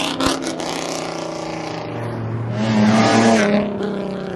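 Sports cars pulling away under acceleration: a Ford Mustang's exhaust with a few sharp pops at the start, then a Nissan 370Z's V6 revving up louder about two and a half seconds in.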